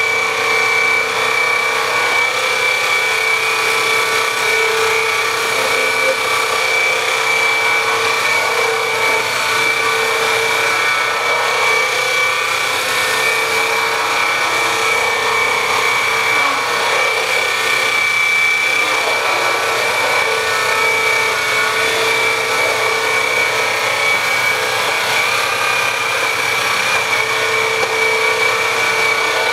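Swivel Sweeper G2 cordless floor sweeper running, its small battery motor giving a steady whine as its rotating brushes sweep over a hardwood floor.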